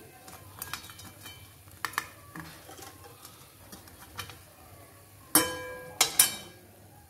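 Perforated steel spoon clinking and scraping against a stainless steel bowl of sugar syrup as jalebis are lifted out: a few light taps, then three loud ringing clanks near the end.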